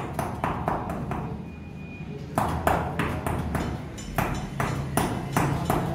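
Hammer striking repeatedly at the top course of a freshly laid brick wall, packing the gap under the lintel: short, sharp blows about three or four a second, with a break of about a second early on before the strikes resume.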